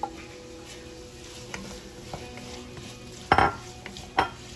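Smoked sausage going back into a pot of cooking vegetables and being stirred in, with a faint sizzle and light clicks of a utensil against the pot, and two louder short scrapes or knocks about three and a quarter and four seconds in.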